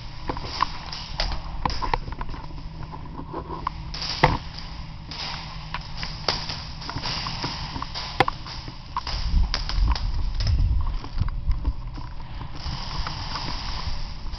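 Irregular sharp clicks and pops of airsoft play, a mix of shots, BB hits and gear handling, over low rumbling movement noise. The two loudest clicks are about four seconds apart.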